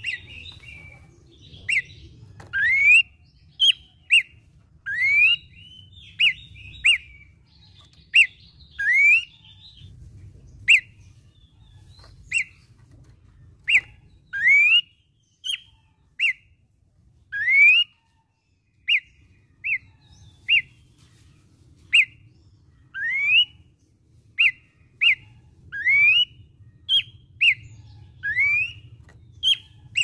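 Pelanduk semak, a Malacocincla babbler, singing a long run of short, clear whistled notes about one a second. Many notes slur sharply upward and others are brief single chips.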